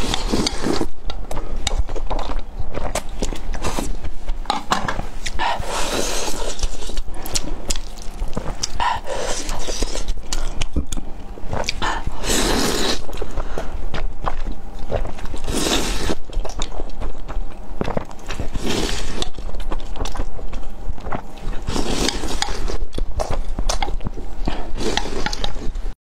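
Saucy spicy fire noodles slurped and chewed close to the microphone: wet chewing clicks throughout, with a long slurp every few seconds.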